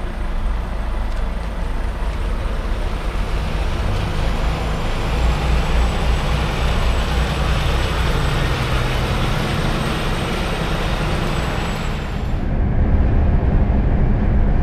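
Articulated lorry's diesel engine running as it pulls out of a loading bay and drives past. About two seconds before the end it gives way to the steady low drone of a lorry driving on a motorway.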